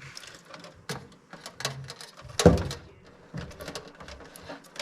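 Scattered light clicks and knocks of objects being handled, with one louder thump about halfway through.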